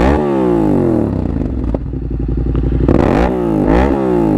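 Yamaha MT-07's parallel-twin engine revved at standstill through a Mivv GP exhaust with the baffle removed. A sharp rev right at the start falls back toward idle, then two quick revs about three seconds in each drop away again.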